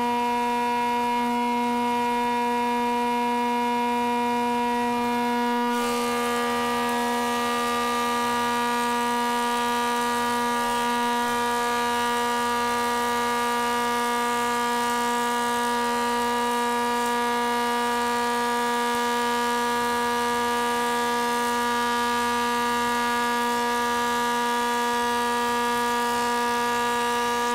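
Stationary thickness planer running with a steady whine. About six seconds in, a board is fed into the cutterhead and a rushing cutting noise joins the whine and continues.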